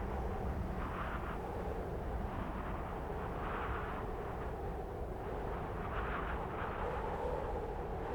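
Cold wind blowing steadily, with gusts swelling and fading every second or two over a constant low rumble.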